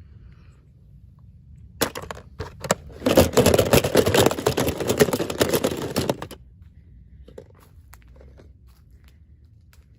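Toy packaging being torn open and crinkled by hand: a few sharp crackles about two seconds in, then dense crinkling and tearing for about three seconds that stops suddenly.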